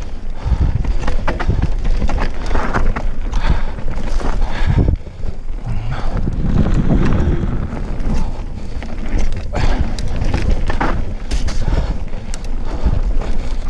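Cube Stereo mountain bike descending a dirt singletrack: tyres rolling on the dirt with wind on the microphone, and frequent rattles, clicks and knocks from the bike over the rough trail.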